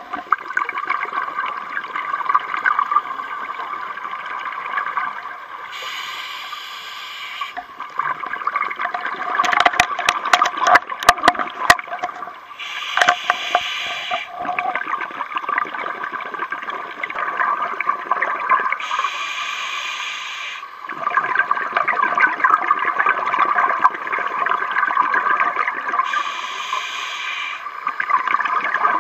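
Scuba diver breathing underwater through a regulator: four hissing inhalations about six to seven seconds apart, with bubbling, gurgling exhalations between them. A run of sharp clicks about ten seconds in.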